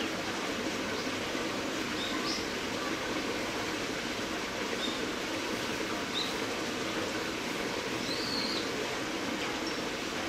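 Steady outdoor background hiss with a few short, high bird chirps scattered through it, a slightly longer one near the end.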